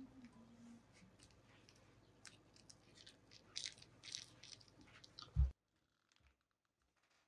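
Faint, scattered crackles and clicks, ending in a short thump about five and a half seconds in, after which it is near silent.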